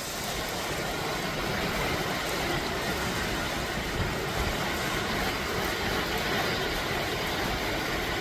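Heavy rain pouring down, a dense steady hiss.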